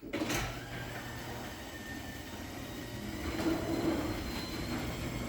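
Garage door opener running, moving a sectional garage door along its track with a steady rumbling hum that starts suddenly.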